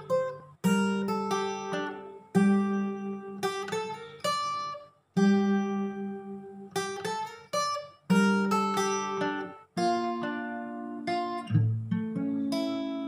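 Acoustic guitar with a capo, fingerpicked: an improvised melody of single plucked notes and chords, each ringing and fading, in short phrases with brief pauses between them.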